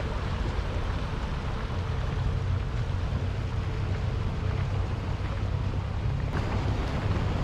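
Small boat under way: outboard motor running steadily, with wind and water rushing past.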